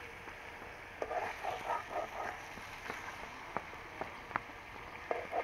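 Metal spoon stirring meat in a metal karahi over a wood fire: a steady frying sizzle with sharp clicks of the spoon striking the pan, several of them in the second half.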